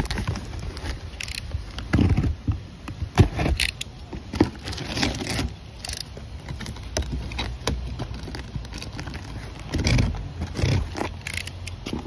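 Packing tape being pulled and torn off a cardboard shipping box while the box is handled, in irregular rustles, rips and sharp clicks with dull knocks in between.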